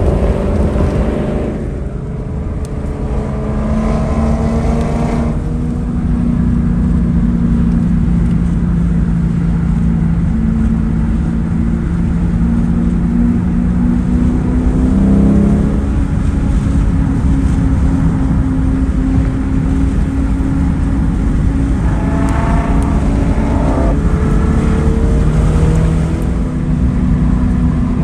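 Car engine and road noise heard from inside a moving car. The engine note holds steady for long stretches, shifts in pitch about halfway through, and rises a few times near the end as it revs.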